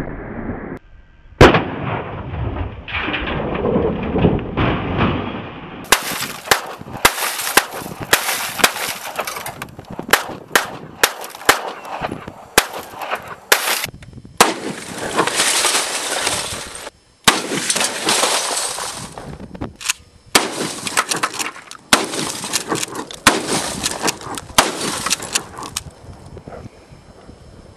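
Repeated gunshots, one very loud early blast and strings of quick shots later, from a 12-gauge pump shotgun and other guns.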